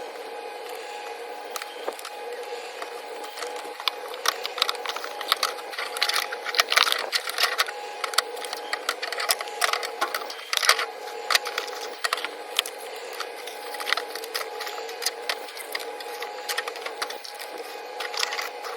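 Packaging being handled during an unboxing: irregular crackling and clicking, busiest in the middle, over a steady background hum.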